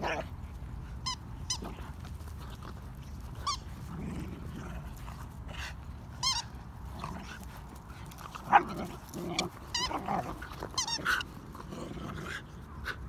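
A beagle and a whippet play-fighting: low play growls with short high yips now and then, the loudest a sharp yelp a little past the middle.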